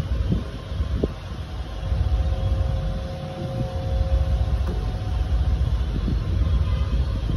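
Steady low rumble of air noise on the microphone, with a few faint clicks and scrapes from a small blade slitting the seal of a cardboard camera box.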